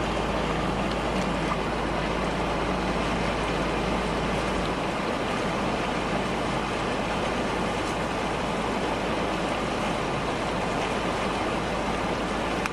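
Floodwater flowing across a highway, a steady rushing noise with no breaks.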